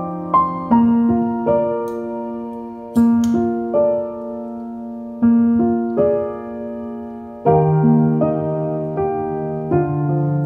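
Background piano music: slow chords struck every second or so, each fading away. There are a few faint clicks around two and three seconds in.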